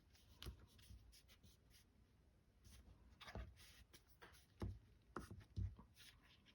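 Faint snips of scissors cutting a bulky flap off a folded cardstock mechanism: a few short, quiet clicks spread through the stretch, the clearest in the second half.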